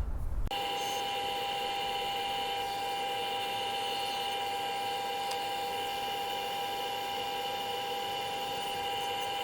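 Wood lathe running at a steady speed, its motor giving an even whine with several fixed tones, starting abruptly about half a second in.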